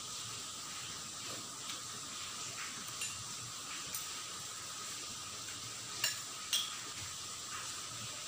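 Metal spoon and fork clinking against ceramic bowls while eating: a few light clinks, with two sharper ones about six seconds in, over a steady background hiss.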